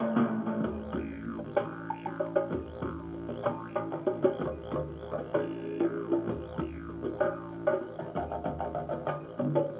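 Didgeridoo music: a steady low drone with shifting overtones and a deep pulse that comes and goes about every two seconds, with short clicks throughout.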